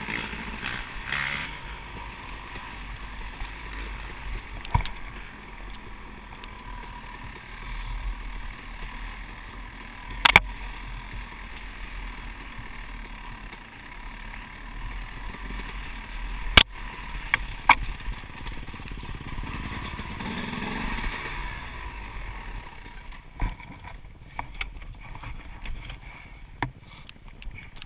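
Dirt bike riding a rough woodland trail, heard from a helmet camera: a steady rushing noise of engine and wind, broken by several sharp knocks, the loudest about ten and sixteen seconds in.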